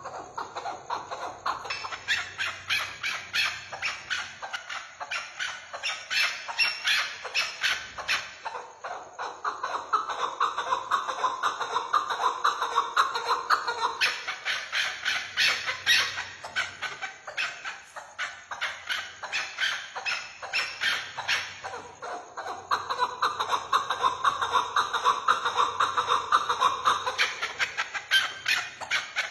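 Chukar partridge calling: long runs of rapid, repeated clucking notes, several a second, in bouts of several seconds with short breaks between.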